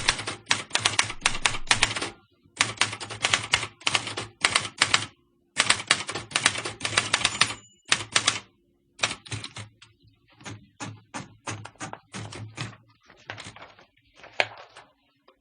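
Typewriter being typed on in fast runs of key strikes broken by short pauses. From about nine seconds in the strikes come fainter and more spaced out, stopping just before the end.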